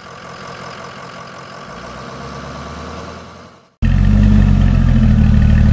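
Truck engine sound effect running steadily, building a little, then fading out just under four seconds in. A much louder vehicle engine then starts abruptly and idles steadily.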